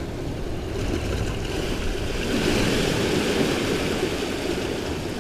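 Ocean surf washing on the shore, one wave swelling up and hissing about halfway through, over a low rumble of wind on the microphone.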